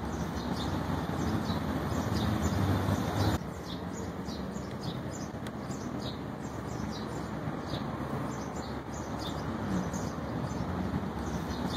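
Small birds chirping over and over, short high chirps several a second, over a steady low rumbling noise that drops a little about three and a half seconds in.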